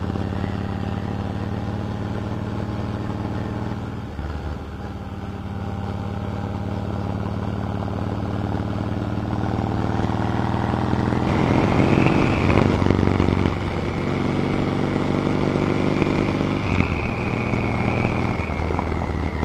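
Harley-Davidson V-twin motorcycle engine running under load on a steep mountain climb. Its note dips and changes about four seconds in, as at a gear change, gets louder for a couple of seconds in the middle, and shifts again near the end.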